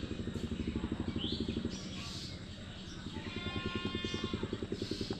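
A small engine running with a rapid, even chugging beat. About three seconds in, a high steady tone sounds for about a second, and short chirps come and go over it.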